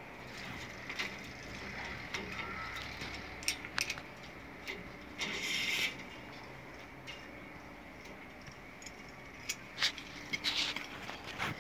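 Small metallic clicks, taps and scrapes from brass cable-gland parts and a hand tool being worked on mineral-insulated cable, with a short scraping rasp about five seconds in and a cluster of clicks near the end.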